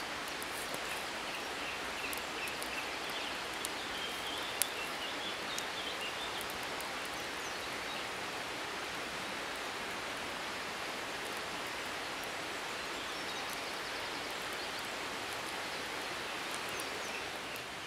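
Steady outdoor background hiss with no voices, with a few faint high chirps a few seconds in and a single click near the middle.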